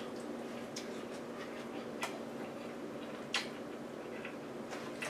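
A person chewing a mouthful of a fathead-dough taco, with a few faint scattered clicks from the chewing, over a steady low hum.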